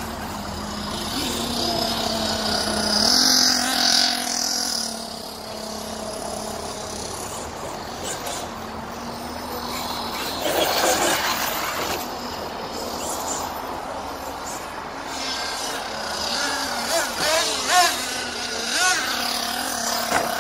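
Arrma Kraton 8S electric RC monster truck driving on a dirt track: its brushless motor and drivetrain whine, rising and falling in pitch with the throttle, with several quick revs near the end.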